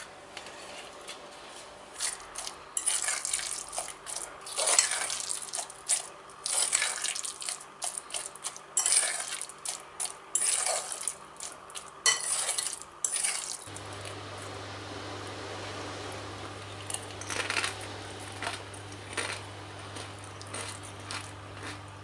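Metal fork stirring and mashing guacamole in a glass bowl, with repeated scrapes and clinks against the glass, roughly one stroke a second. Past the middle the strokes thin out to a few, and a steady low hum sets in.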